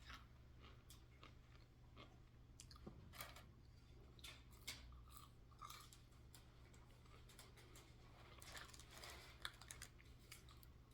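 Faint, close-up chewing and crunching of fried food, with scattered small mouth clicks, over a low steady hum.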